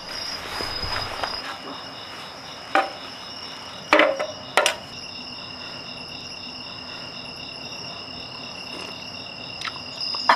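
Crickets chirring steadily: one continuous high trill and a lower, pulsing chirp. A few sharp clicks or knocks break in, three of them in the first five seconds.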